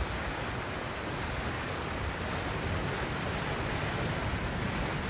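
Steady rushing of wind and water around a motor yacht under way, with no distinct engine note or other events.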